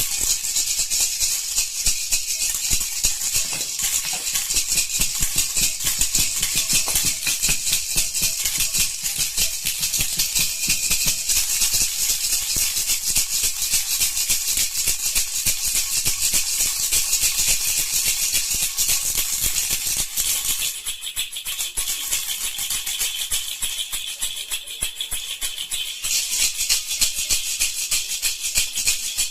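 Baby's toy rattle (jhunjhuna) shaken rapidly and continuously, a dense high-pitched shaking of small beads, easing a little about two thirds of the way through.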